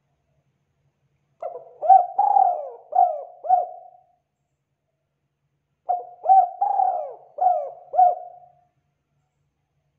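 Spotted dove cooing: two phrases of about five coos each, the second starting a few seconds after the first ends.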